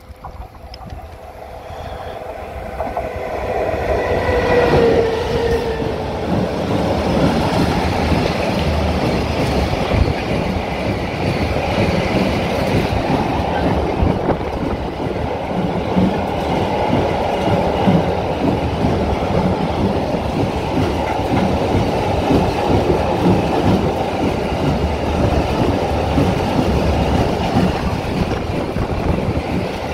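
Electric-hauled freight train of double-deck car-carrier wagons approaching and passing close by, a whine from the approaching train dropping in pitch as it passes about five seconds in, then a steady rumble with the wheels clattering over the rails as the long string of wagons goes by.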